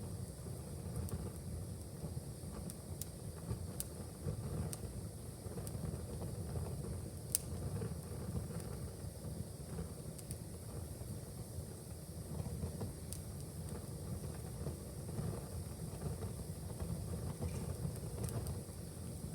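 Wood fire in a fireplace crackling: scattered sharp pops and snaps over a steady low rumble, with one louder pop about seven seconds in.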